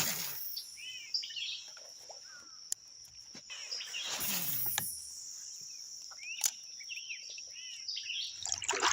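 A steady, high insect drone of crickets and cicadas, with a few bird chirps on top and two broad swishes about four seconds apart. The drone fades away near the end.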